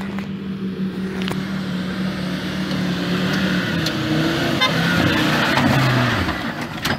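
Off-road 4x4 engine running under load, holding a steady note at first, then shifting pitch and getting louder before the note drops away about six seconds in.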